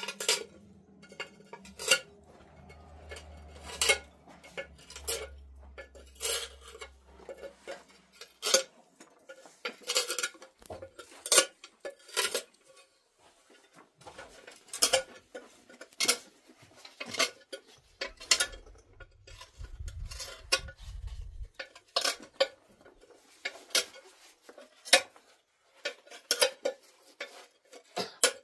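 Repeated sharp metallic clinks and knocks, irregular, one or two a second, from metal cement containers and tools being handled during block-wall masonry work.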